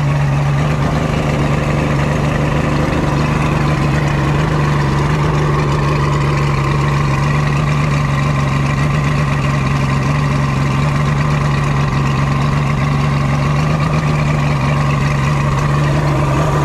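Checkmate speedboat's engine running steadily at one even speed, with a constant low hum.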